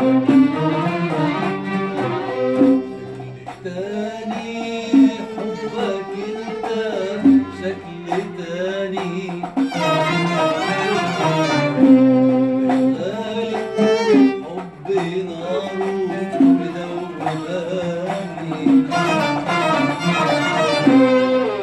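An oud is being plucked while a man sings along to it.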